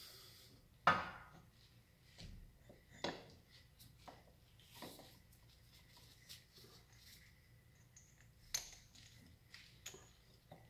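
Scattered light metallic clinks and taps of the CV axle's inner joint and hand tools against the transmission flange as the axle is fitted back in, with the sharpest knock about a second in.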